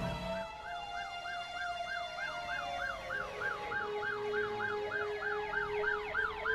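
Emergency vehicle sirens sounding at once: a fast yelping siren rising and falling about four times a second, overlapped by slower rising and falling wails.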